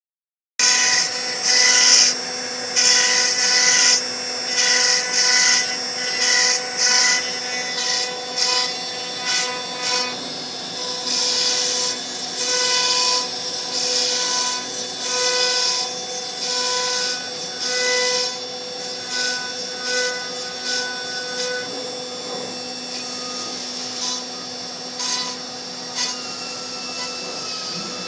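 CNC router spindle cutting foam with a 1/2 in bit: a steady whine under a gritty cutting hiss that swells and fades about once a second as the bit sweeps through the foam.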